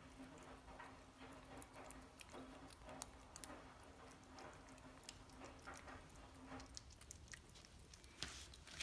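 A cat licking and chewing a soft treat off a plastic spoon: faint, quick wet clicks and smacks. A low steady hum runs underneath and stops about seven seconds in.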